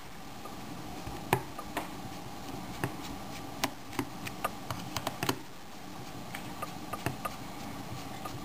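Irregular small clicks and ticks of a No. 00 Phillips screwdriver turning out a back-panel screw of a Creative Zen Vision W media player, with a few sharper clicks among them.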